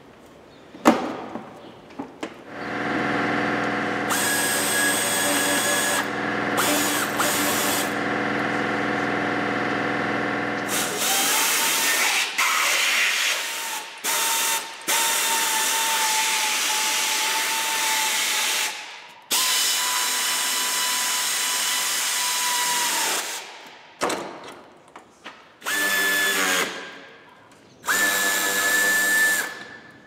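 Electric drill-driver running in several long spells of a few seconds each, with a steady motor whine, then two short bursts near the end, driving in the fasteners of a car's front bumper.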